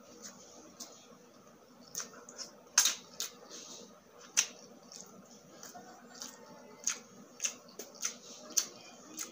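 Close-miked chewing: a string of irregular wet mouth clicks and smacks as a person eats grilled street food and rice, the loudest about three seconds in and again a little past four seconds.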